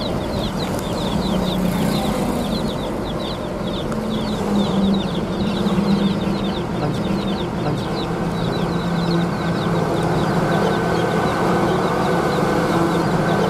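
Engine and road noise of a vehicle driving on a highway, heard from inside the cabin, with a rapid series of short, high, falling chirps over the first two-thirds. About ten seconds in, a steady higher whine joins the engine noise.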